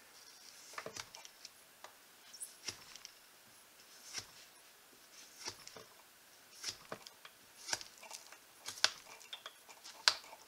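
A Mercator carbon-steel knife blade, no longer shaving sharp, cutting and scraping through a rubber boot sole: short, sharp scratchy clicks at irregular intervals, coming more often near the end.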